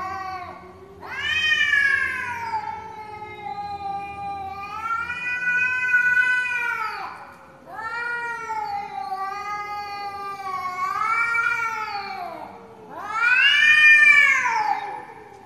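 Domestic cats in a face-off caterwauling: long, drawn-out yowls that rise and fall in pitch, three long calls with the loudest near the end. This is the threat yowling of cats squaring up to fight.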